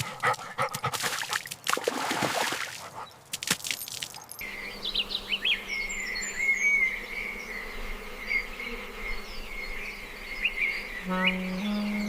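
A steady high-pitched insect buzz with small chirps, after a few seconds of broad noisy crackling. Music comes in near the end.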